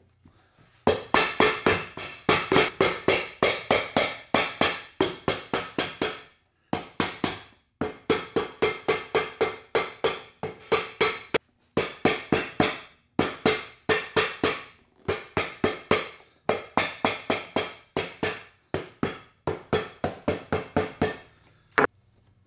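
Cobbler's hammer tapping rapidly on a leather shoe sole held over a metal form, about four sharp ringing blows a second in runs with brief pauses.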